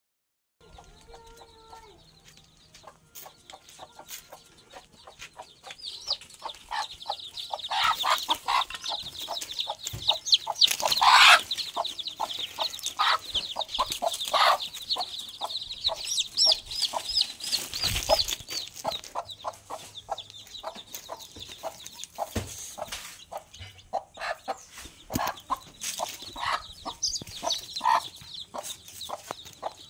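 Domestic hen clucking among her chicks, which keep up a stream of short, high-pitched peeps. A loud harsh burst comes about eleven seconds in, and a dull thump a little later.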